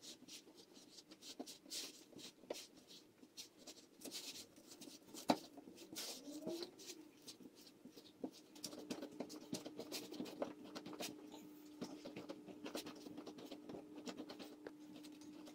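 Hands kneading a stiff egg-yolk dough on a floury countertop: faint rubbing, scraping and soft pats, with scattered small clicks. A faint steady low hum comes in about halfway through.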